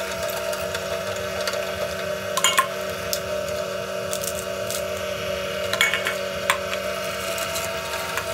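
Electric meat grinder running with a steady motor hum while chicken and vegetables are pressed down its feed tube with a plastic pusher. A few short clicks and knocks come about two and a half seconds in and again around six seconds.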